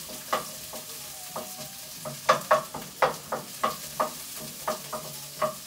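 Diced onion sizzling in hot oil in a wok while a wooden spatula stirs it, scraping and knocking against the pan. The strokes are sparse at first and come about three a second from about two seconds in. The onion is being softened in the oil.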